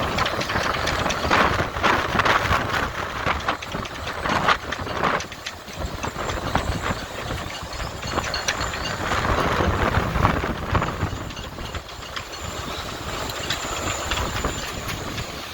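Hurricane wind gusting at around 30 knots, a loud rushing rumble that swells and eases every few seconds, with scattered clicks and rattles throughout.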